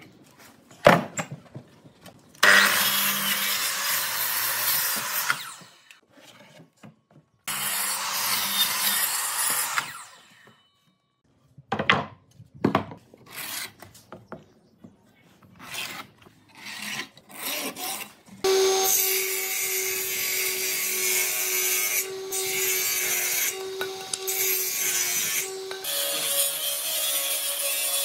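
Woodworking sounds: a hand tool scraping along a rough wooden slab in two long strokes, then scattered knocks of boards being handled. About two-thirds of the way through, a jointer-planer starts running loudly with a steady hum, which steps up in pitch near the end.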